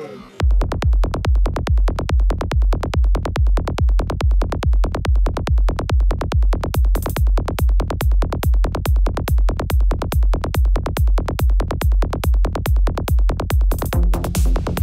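Psytrance dance music: after a quieter melodic passage, a steady four-on-the-floor kick drum and rolling bassline come in about half a second in. Higher percussion joins around seven seconds in.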